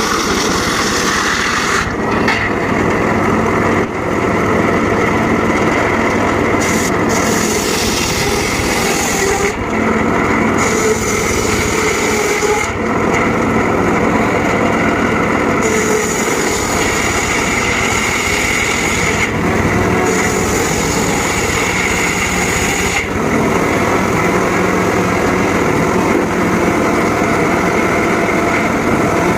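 Homemade circular saw running steadily while sawing teak wood. Its upper hiss drops and returns several times as the cut goes on.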